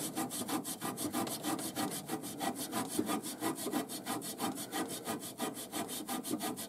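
A Japanese sanding sponge (abrasive rust eraser) scrubbed rapidly back and forth on surface-rusted metal, about five rubbing strokes a second.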